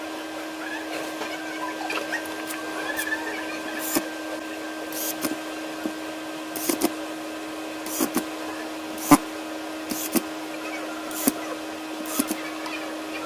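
Sharp clicks and taps, about a dozen scattered irregularly, as a camcorder's plastic housing and circuit board are handled and screwed back together. A steady hum runs underneath.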